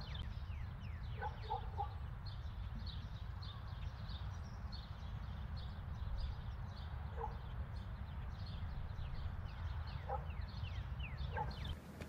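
Birds chirping busily, many short, high, falling notes, with a few brief lower calls, over a steady low rumble.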